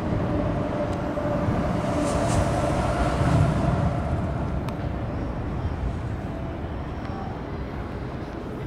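A steady vehicle rumble with a faint hum in it, swelling to its loudest about three seconds in and then slowly fading.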